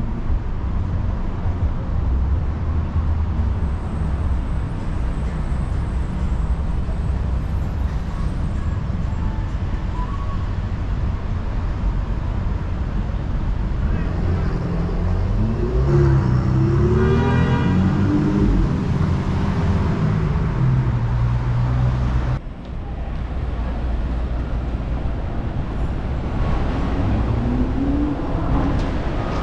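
Busy city street ambience: a steady rumble of car traffic, with voices of passers-by and a passing vehicle around the middle.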